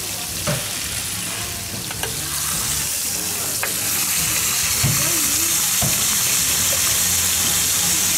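Squid and baby octopus sizzling in butter on a hot round griddle pan, with a few light clicks of metal tongs against the pan as the pieces are turned. The sizzle grows louder about three seconds in.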